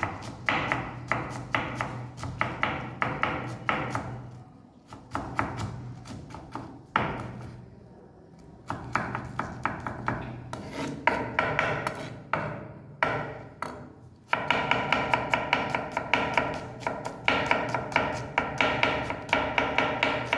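Knife chopping rapidly on a cutting board, about four or five strokes a second, in runs broken by short pauses.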